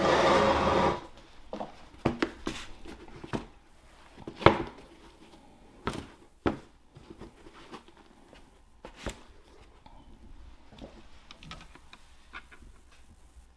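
Sneakers being handled and shifted about on a tabletop: a brief rustle at the start, then scattered light knocks and taps, the loudest about four and a half seconds in.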